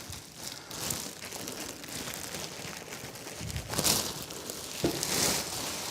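Packaging crinkling and rustling as a boxed PC case is unwrapped, with louder rustles about four and five seconds in.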